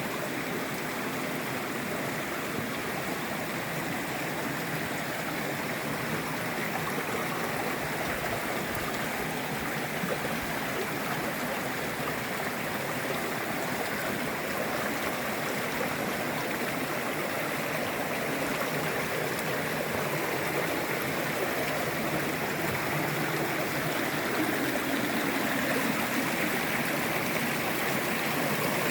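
River water rushing steadily, a constant hiss and gurgle, a little louder near the end.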